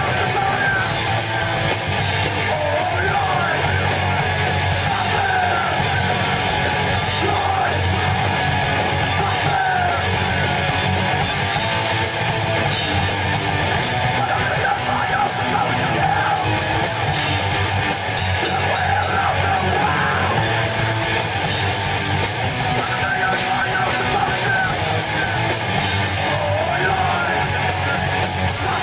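Live heavy rock band playing loud and continuous, with a singer yelling over guitar.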